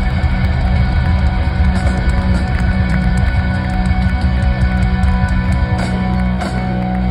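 Loud live concert music with a heavy, sustained bass and a steady beat, heard from the crowd through a phone's microphone.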